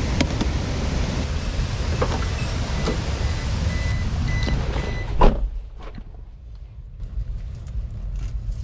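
Steady rush of mountain-stream water with a few faint clicks. About five seconds in there is a sharp knock, then the rushing drops away to a quieter low rumble.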